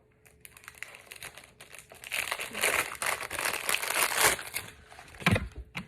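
Packaging being crinkled and unwrapped by hand to get at the next ring: a few light rustles at first, then a dense stretch of crinkling in the middle. A short soft bump follows near the end.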